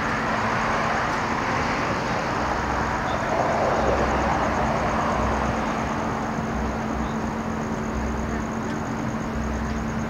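Road traffic noise: a vehicle passes, swelling and fading between about two and six seconds in, over a steady low hum and a faint high pulsing whine.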